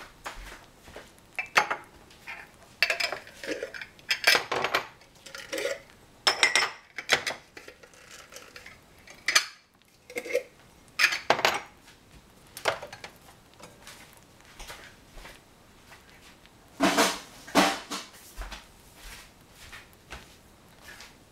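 Kitchenware being handled: glass jars, lids and metal pots clinking and knocking against each other and the stovetop in irregular, separate strokes, with a loud pair of knocks near the end.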